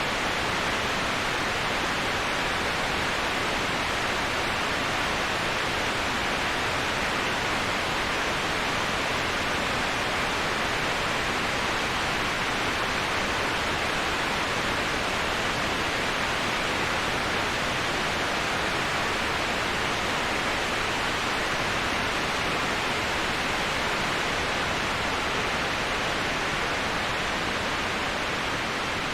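Waterfall: steady, unbroken rushing of falling water with an even hiss and no other sounds.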